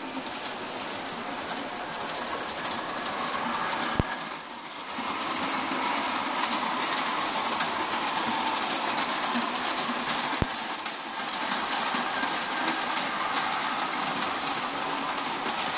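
Model 44-tonner diesel locomotive running downhill around a track helix with a string of freight cars: a steady motor and gear whine over fast clicking of the wheels across the rail joints, with two sharper clicks about six seconds apart.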